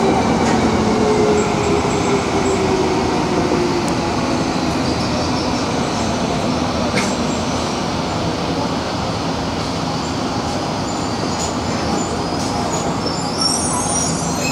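Hibiya Line subway train running from the station into the tunnel, heard from inside the front car: steady rumble of motors and wheels on the rails, with a whine that falls in pitch over the first few seconds.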